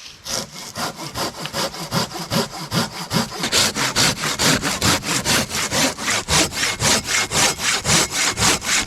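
Hand saw cutting a dead, dry ash log in quick, regular push-pull strokes, about five a second, getting louder a few seconds in. The cut is on the compression side of the bent log, so the kerf closes up on the blade.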